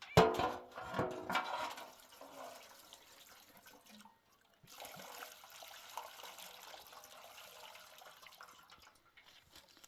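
Water running or splashing, loudest in the first two seconds, then a steady hiss that breaks off briefly about four seconds in.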